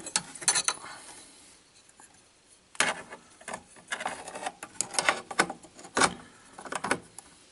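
Irregular clicks and scraping of a small metal record/playback lever being worked by hand onto its pivot post in a cassette deck's chassis. There is a brief handling noise at the start, a short lull, then a string of clicks and scrapes from about three seconds in.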